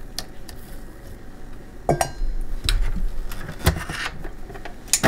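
Clinks and knocks of a silicone spatula and a wire whisk against the stainless steel bowl of a stand mixer, a handful of separate hits mostly in the second half, with a low thump as the mixer's tilt head is lowered onto the bowl.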